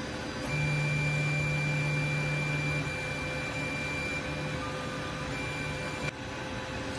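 TENLOG 3D printer's stepper motors running with a steady hum and high whine as the printer starts its print job, cutting off suddenly about six seconds in. A faint steady hum continues underneath.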